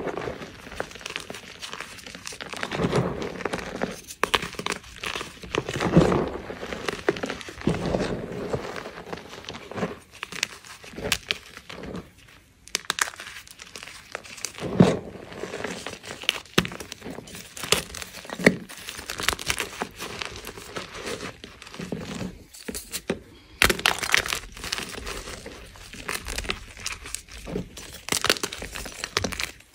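Hands crushing and squeezing crumbly blocks of gym chalk in loose chalk powder: an irregular run of crunches and crackles, with some louder crunches.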